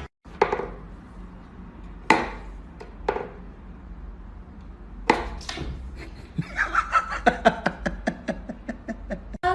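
Sharp wooden knocks from a wooden whack-a-mole cat toy as the cat bats at it and its wooden plunger sticks are worked: a few single knocks, then a quick run of about six clicks a second over the last three seconds.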